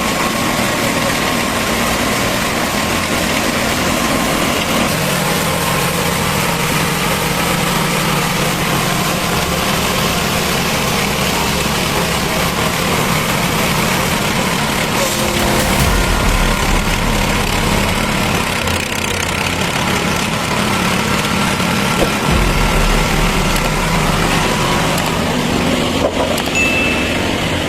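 Machinery running steadily with an engine, a dense, even noise with a faint steady whine and shifting low rumble.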